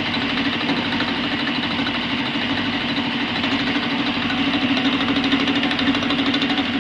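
Batliboi vertical milling machine's end mill cutting along the side of a thick steel workpiece: a steady machining hum with a fast, even chatter from the cutter teeth biting the metal.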